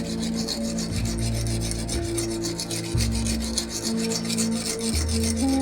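A knife blade being stroked back and forth on a coarse Japanese whetstone in the first sharpening stage: a rhythmic, gritty rasping made of rapid, even strokes.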